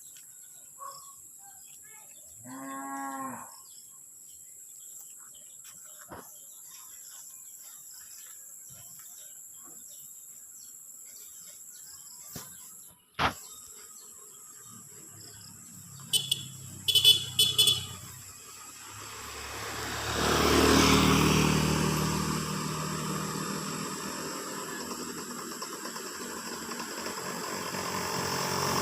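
A single short pitched call about three seconds in, then a few short, loud, sharp sounds, then a motor vehicle passing close by, its engine loudest about twenty seconds in and still running near the end.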